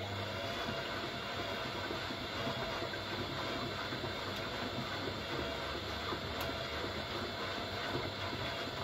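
Siemens Siwamat Perfecta SL washing machine running its delicates cycle: a steady mechanical rumble with hiss over a low hum.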